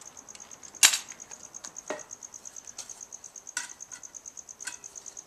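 A high, evenly pulsing trill like a cricket chirping runs steadily. Over it come a few sharp knocks and clinks from handling a portable wood-burning camp stove, the loudest about a second in.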